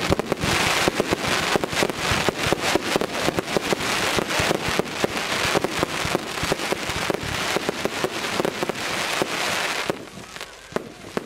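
Fireworks firing in quick succession: a dense run of bangs and crackle over a steady hiss, which drops off about ten seconds in to a few scattered pops.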